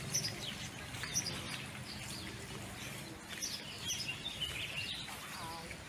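Several small birds chirping, short high calls scattered throughout and overlapping, over a faint steady low background hum.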